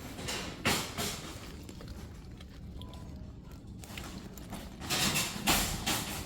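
Rustling and handling noise, with loud scuffing bursts about a second in and again near the end.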